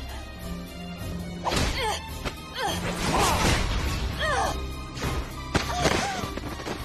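Fight-scene soundtrack: a woman's pained cries and grunts with punch and kick whooshes and thwacks over dramatic background music, the loudest hits about one and a half, three and six seconds in.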